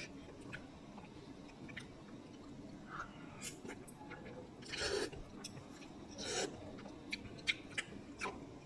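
A person eating instant noodles: quiet chewing and mouth noises, with a few short noisy bursts in the middle and small clicks near the end.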